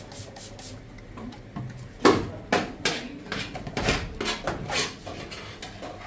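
Clatter of metal tart tins being handled on a stainless steel worktop and put into a stone-deck oven: a string of sharp knocks, loudest about two seconds in and again around four seconds.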